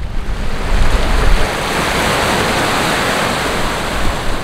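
Small waves breaking and washing up over a stony shore, settling into a steady rush about a second and a half in, with wind buffeting the microphone.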